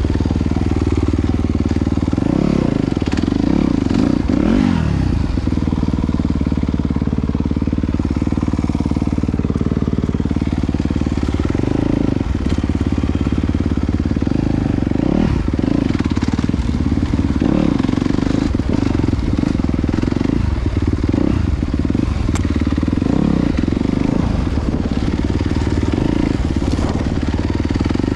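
Off-road dirt bike engine running continuously while riding, its pitch rising and falling with the throttle, with frequent short knocks and rattles.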